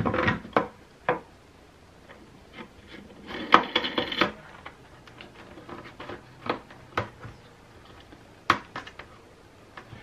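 Float valve being fitted through the hole in a plastic bucket wall: scattered clicks, knocks and scraping of plastic and metal parts against the bucket, with a short burst of rattling about three to four seconds in.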